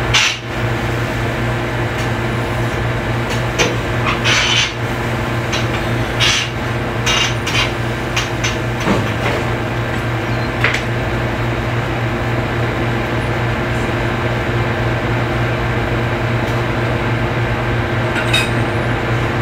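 Busy commercial kitchen: a steady hum of kitchen machinery under a run of clinks and clatters of utensils, plates and pans on the griddle and steel counters, thickest in the first half and sparser later.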